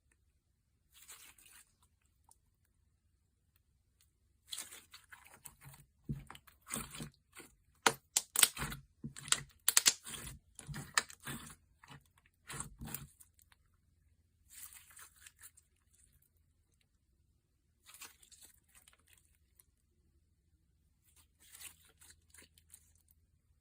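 Thick, chunky slime being squeezed and stretched by hand: groups of short crackly clicks and crunches. The handling is densest and loudest in the middle, with shorter, quieter handfuls later on.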